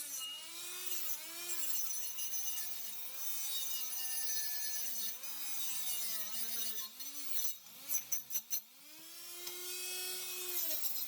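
Small power tool whining at the workpiece, its pitch dipping and rising again and again as the load on the motor changes. Several sharp knocks come about eight seconds in.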